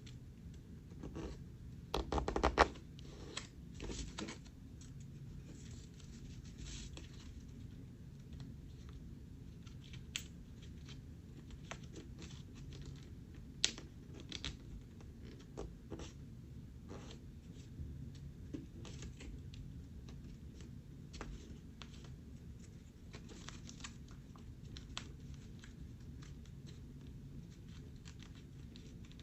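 A sheet of paper being folded and creased by hand: scattered rustles and scrapes, with a louder burst of crinkling about two seconds in.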